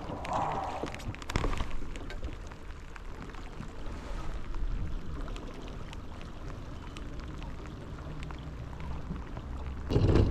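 Steady rain falling, many small drop ticks over a constant hiss, with a louder low thump near the end.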